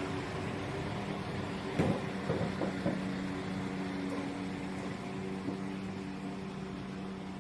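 Class 172 Turbostar diesel multiple unit standing at the platform with its diesel engines idling: a steady hum with a few fixed tones, and a single knock about two seconds in.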